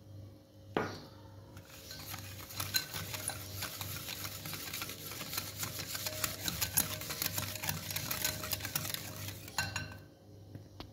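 Wire whisk beating a runny egg, oil, sugar and milk mixture in a glass bowl: rapid, continuous clinking and scraping of the wires against the bowl. It starts about a second and a half in, after a single knock, and stops shortly before the end.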